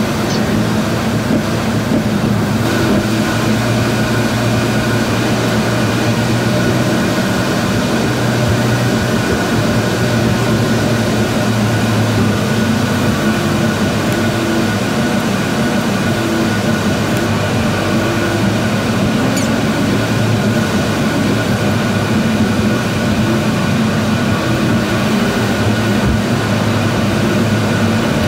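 Steady road and engine noise heard from inside a car cruising through a highway tunnel: a constant hum with a few steady tones under the tyre rush.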